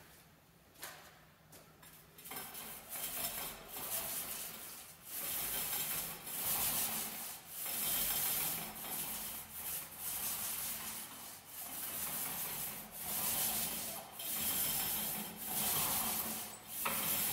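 Paint roller on an extension pole rolling paint onto a wall: a repeated rasping swish with each up-and-down stroke, about one a second, starting after about two seconds of near silence.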